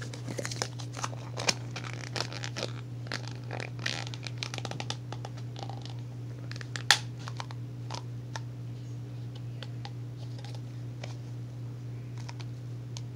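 Small clear plastic containers handled in the hands: scattered clicks, taps and crinkles of thin plastic, busiest in the first few seconds, with one sharper click about seven seconds in, over a steady low hum.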